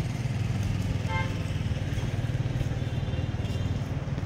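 A small engine running steadily with a low hum, and a brief high-pitched chirp about a second in.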